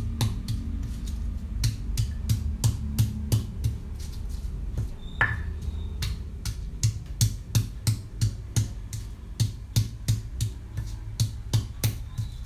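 Repeated sharp knocks of kitchen work, about three a second and uneven, over quiet background music. A single ringing clink comes about five seconds in.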